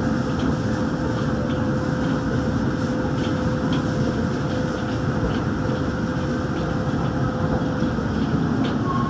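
Daegu Metro Line 3 monorail train running, heard from inside the car: a steady rumble of its rubber tyres on the guideway, with a thin steady hum that drops out about eight seconds in.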